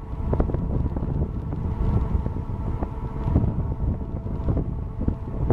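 Gusty wind buffeting the microphone, over a steady hum of several held tones from the moored cruise ship MS Artania's machinery.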